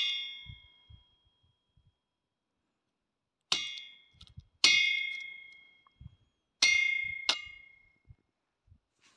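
Claw hammer striking a green cane stalk laid on a rusty steel block, crushing and splitting it. Four sharp metallic clangs, each ringing from the steel and dying away over about a second; the first comes a few seconds in, after the fading ring of a blow just before.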